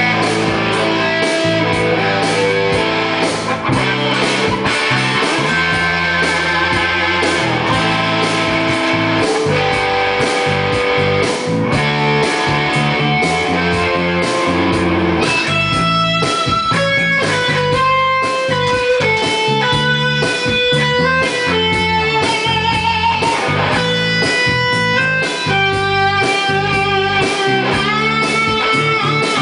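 Electric guitar played solo: busy, dense playing in the first half, turning about halfway into a lead line of held single notes with vibrato.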